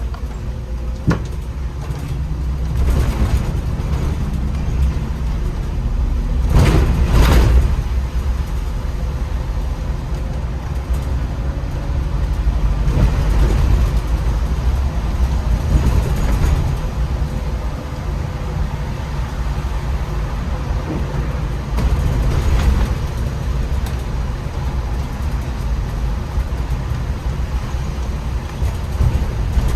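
MAN Lion's City articulated city bus driving, a steady low engine and road rumble with several louder swooshes that rise and fade, the loudest about seven seconds in.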